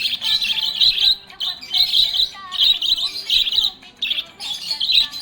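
Budgerigars chirping and warbling in short bursts of high chirps that repeat every half second or so.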